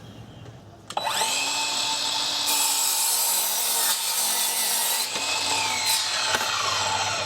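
Craftsman V20 7.25-inch cordless sliding miter saw starting about a second in, its motor whining up to speed. Its 40-tooth carbide blade cuts through a 2x4 with a bright rasping hiss. Near the end the motor winds down in a long falling whine.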